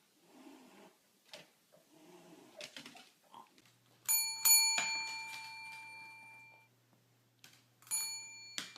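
A doorbell chime rings about four seconds in and dies away over a couple of seconds, then rings again, more briefly, near the end.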